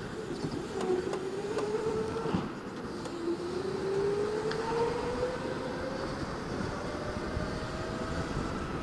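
Electric go-kart motor whining under way, its pitch dipping twice into corners and then climbing steadily as the kart accelerates down a straight, over a steady rush of wind and tyre noise.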